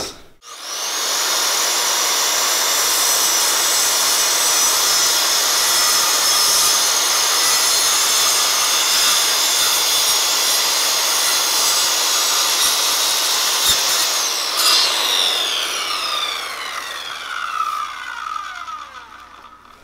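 Corded circular saw starting up and cutting along a wooden board with a steady high whine. About fourteen seconds in it is released, and the blade spins down with a falling pitch.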